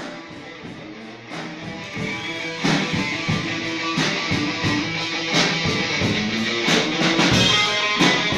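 Instrumental music with a steady beat, getting louder and fuller about two seconds in.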